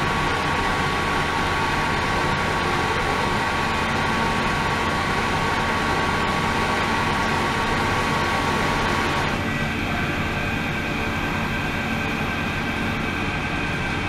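Flowing-water ultrasonic cleaning tank running: steady hum of the circulation pump with water pouring and churning into the stainless tank. A thin steady whine stops about nine seconds in, and the hiss turns duller from then on.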